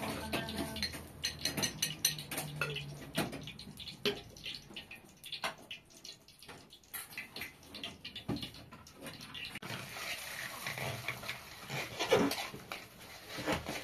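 A metal spoon clinking and scraping against a metal frying pan and a jar as eggs are stirred over a gas burner, in scattered irregular clicks and knocks, under a light frying hiss.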